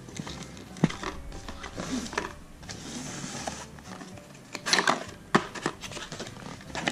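Cardboard packaging being handled as a box is opened: a folded cardboard tab is slid out and the lid flaps pulled open, giving scraping and rustling with scattered sharp knocks. The loudest is a short cluster of snaps and knocks about five seconds in.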